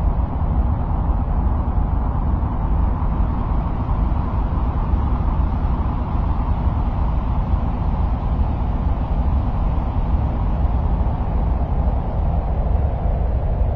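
Ambient 'sound of Mars' noise track: a steady deep rumble with a softer hiss above it, even throughout with no separate events.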